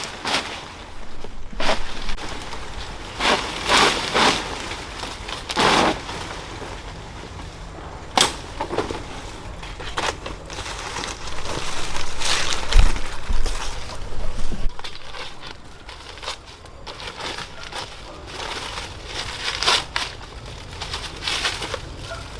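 A series of irregular crunches, snaps and crackles, like plant material and soil being broken and handled by hand, with a dull low thud about thirteen seconds in.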